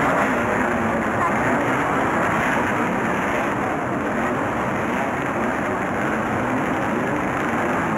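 Several Formula 5000 racing cars' 5-litre V8 engines running together, a dense steady noise in which no single engine stands out.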